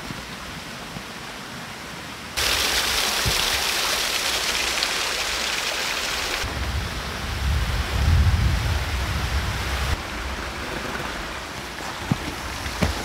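Steady rushing outdoor noise that jumps louder a little over two seconds in and changes again at about six and ten seconds, with a low rumble in the middle stretch and a few faint knocks near the end.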